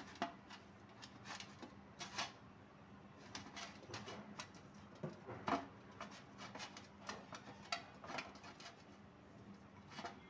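Hands kneading a stiff rice-flour thattai dough in a glass bowl: a faint, irregular run of soft squishes and light clicks against the bowl.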